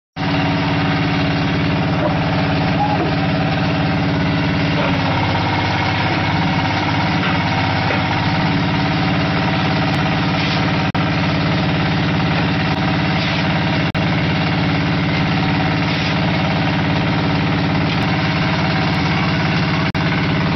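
Diesel engine of a QTF4-28 hydraulic block-making machine running steadily, with a few sharp clicks.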